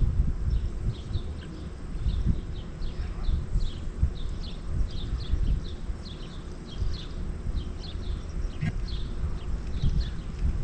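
Wind buffeting the microphone in uneven low rumbles, with short high chirping calls repeating a few times a second over it.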